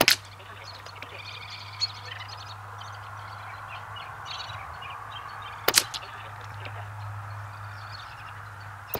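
Air Venturi Avenger .22 PCP air rifle firing: a sharp shot just after the start, another about five and a half seconds later, and a third right at the end. Birds call in the background between the shots.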